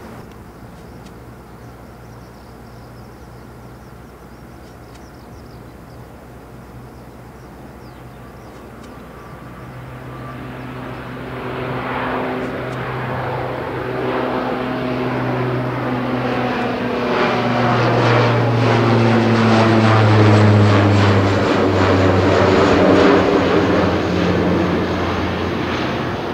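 A Bombardier Dash 8 Q400 turboprop airliner at takeoff power, its six-bladed propellers giving a deep, steady propeller drone. The drone is faint at first and grows loud from about ten seconds in as the plane climbs out overhead. Its pitch drops a little about three-quarters of the way through as it passes and moves away.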